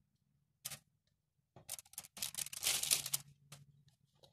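Parchment paper in a baking tray rustling and crinkling as pieces of butter are set onto it by hand. There are a few light taps, and the rustling is thickest in the middle.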